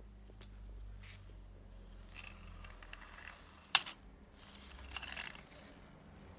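Steel tape measure blade being pushed and dragged under a car seat, with faint, sharp metallic clicks: a small one about half a second in and a much louder one a little before four seconds, then a brief scraping rattle about a second later.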